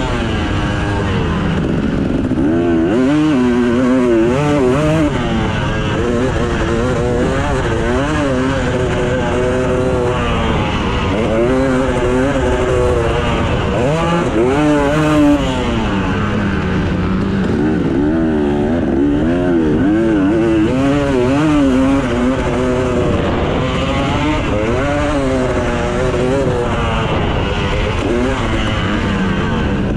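Two-stroke KTM 250 SX dirt bike engine being ridden hard, its pitch rising and falling every second or two as the throttle opens and closes.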